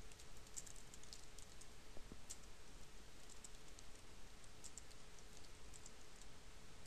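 Computer keyboard being typed on: faint, irregular key clicks at a steady typing pace, over a faint steady hum.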